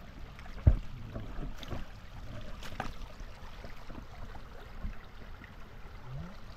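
Shallow stream water running and splashing around a person wading, with scattered knocks. A sharp low thump a little under a second in is the loudest sound.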